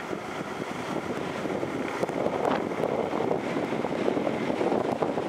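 Wind buffeting the microphone of a roof-mounted camcorder on a moving car, mixed with road noise: a steady, wavering rush.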